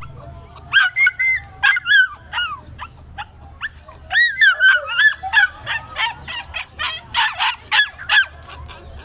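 A young Alabai (Central Asian Shepherd Dog) barking in a quick series of high-pitched yips, starting about a second in and going on until near the end.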